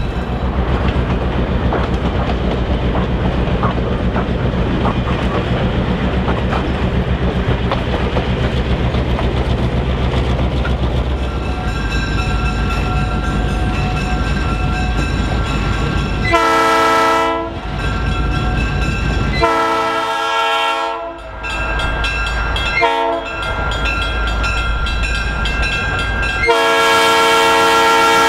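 Diesel locomotive running with a steady engine rumble and its wheels clicking over the rail joints, then the horn sounding the grade-crossing pattern: two long blasts, a short one, and a long one held to the end.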